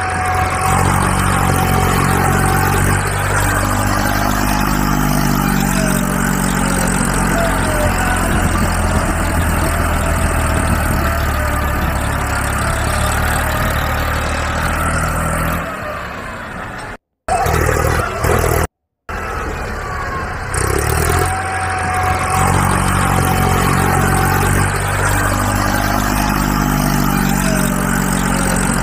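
A vehicle engine running steadily, its pitch slowly rising and falling as it revs. It cuts out completely twice, briefly, a little past the middle.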